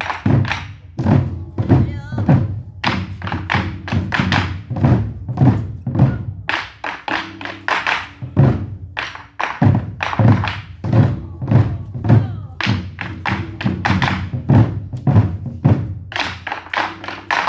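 Korean drum ensemble beating barrel drums in a fast, driving rhythm, several strikes a second with heavy accents and booming low resonance under the hits.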